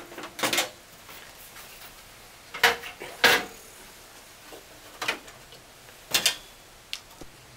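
Separate clicks and clunks of a Dell 9200 desktop's case being opened and worked on: the cover released and lifted off, then the blue plastic expansion-card latch being handled. The loudest knocks come about a third of the way in, with a few lighter clicks after.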